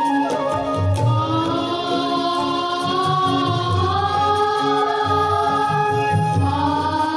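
Music: several voices singing together in long held notes over a steady low drone.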